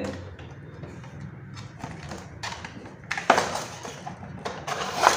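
Cutter blade cutting the plastic ties that hold a toy excavator in its packaging tray: a few short scrapes and clicks with rustles of handling, loudest about three seconds in and near the end.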